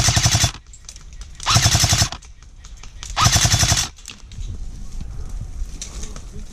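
Airsoft gun firing three full-auto bursts in quick succession, each under a second long. After them comes a quieter scatter of distant shots.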